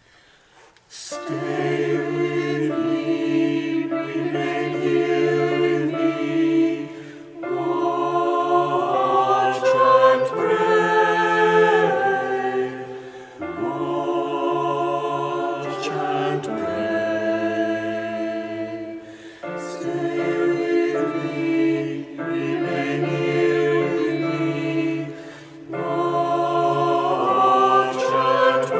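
Choir singing a slow sacred piece in phrases of several seconds each, with brief breaths between them; it begins about a second in.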